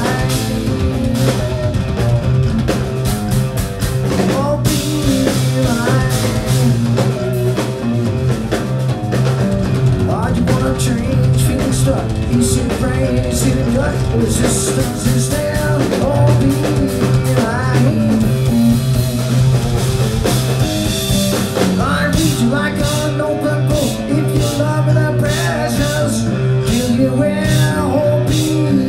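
Live rock band playing loud: electric guitars, bass and drum kit, with sliding, bending notes in the lead line.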